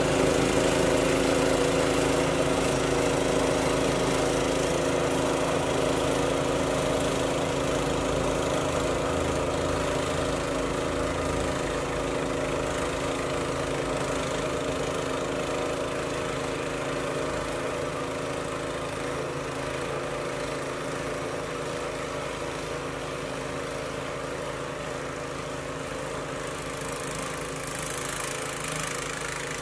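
Snowblower's small engine running steadily, growing fainter as the machine moves away down the driveway.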